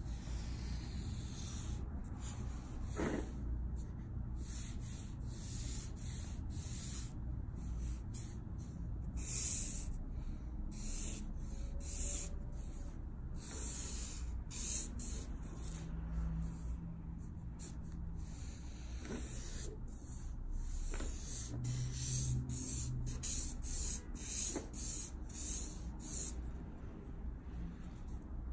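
Copic W2 marker's chisel nib rubbing across Bristol paper in many short strokes, a soft hissing scrape that starts and stops with each stroke, over a low steady hum.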